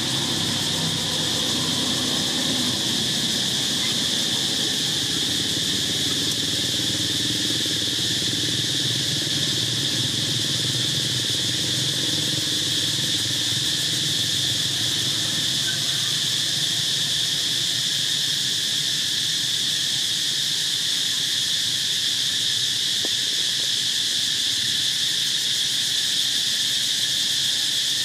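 Steady high-pitched droning of insects, unbroken throughout, with a low steady rumble underneath.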